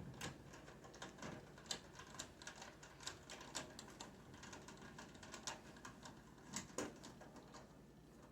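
Faint, irregular light clicks and taps from hands working on a microwave oven's casing and small parts while it is being put back together.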